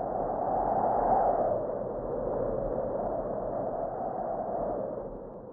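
A muffled, rushing noise with no clear pitch that swells about a second in and starts to fade away near the end.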